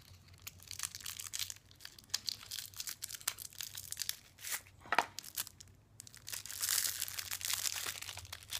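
Hands opening a small box and unwrapping a lighter from its packaging: a string of small clicks and scrapes with crinkling, and a longer stretch of rustling near the end.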